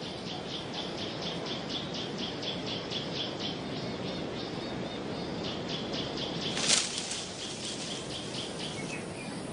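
Outdoor wildlife ambience: a high chirp repeats about four times a second over a steady low hiss, with one sharp click about two-thirds of the way through.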